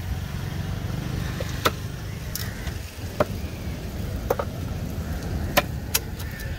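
Knife and cleaver chops on a wooden log chopping block as tuna is cut into chunks: about seven sharp blows spaced irregularly, two in quick succession a little past four seconds in. A steady low rumble runs underneath.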